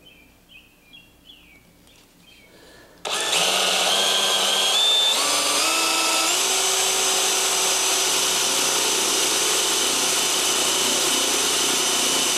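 Power drill boring a 3/8-inch counterbore into a wooden board with a Forstner bit. The drill starts about three seconds in and then runs steadily, its whine stepping up in pitch a few times over the first few seconds of drilling.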